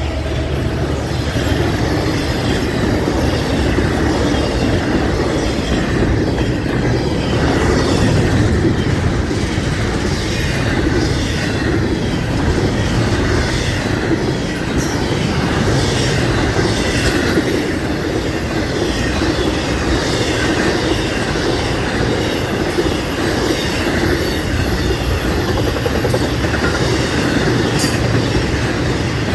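Florida East Coast Railway train rolling past close by: a steady loud rumble of cars with wheels clicking over the rail joints.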